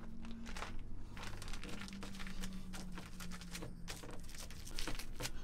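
Small seasoning shaker shaken over food in quick strokes: a rapid, irregular run of dry rattling taps.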